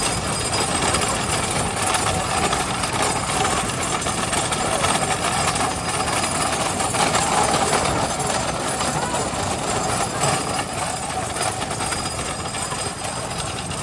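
Wooden-wheeled bullock cart rattling and clattering steadily along an asphalt road behind a bull at a brisk pace, with a motorbike's engine and wind noise mixed in.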